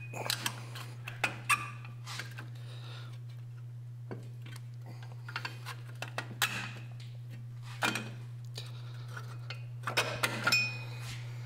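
Scattered metal clicks and clinks of drum-in-hat parking brake shoes and their springs being worked into place over a rear wheel hub and into the adjuster, with a steady low hum underneath.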